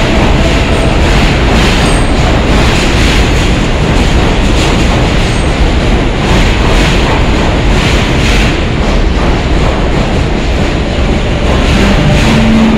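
New York City subway train running past the platform at speed. It makes a loud, steady rumble with a repeating clatter of wheels over the rail joints.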